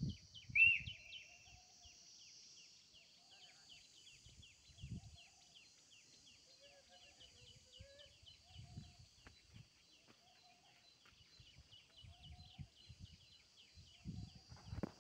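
Outdoor chorus of insects: a steady high buzz with a regular ticking chirp about four times a second. A single sharp bird call just after the start is the loudest sound, and low rumbles of wind on the microphone come and go.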